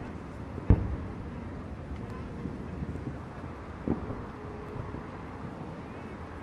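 Two fireworks shells bursting with sharp bangs, a louder one under a second in and a weaker one about four seconds in, over a steady low background rumble.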